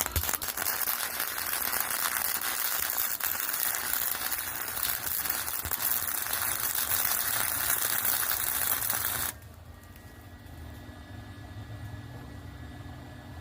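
Arc welding on steel T-posts: a steady, dense crackle and sizzle of the arc for about nine seconds that stops suddenly, leaving a low hum.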